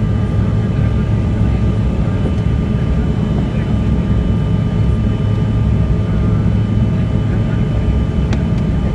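Bombardier CRJ200's twin turbofan engines running steadily at takeoff power: a loud, even rumble with a few steady whining tones over it.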